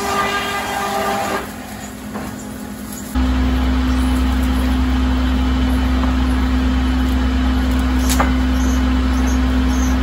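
Sawmill machinery running steadily: a whine with several tones at first, then, about three seconds in, an abrupt change to a louder, steady low drone with one strong hum.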